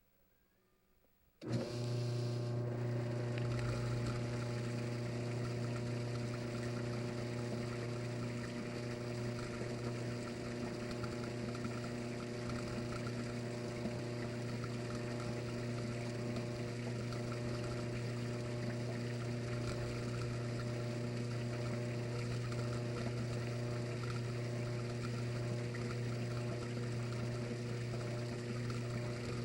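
Washing machine drain pump switches on suddenly about a second and a half in and runs steadily, a strong low hum with water rushing through it as the machine pumps out to the drain.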